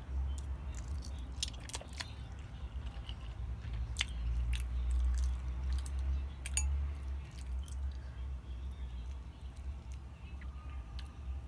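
Close-miked chewing of food, with many short, wet mouth clicks and smacks scattered irregularly throughout.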